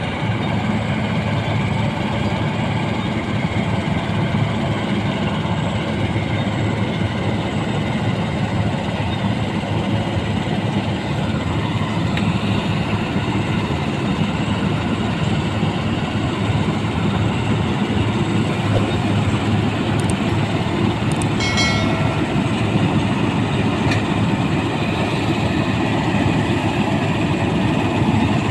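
New Holland 1545 rice combine harvester running, a steady, unbroken engine and machinery drone.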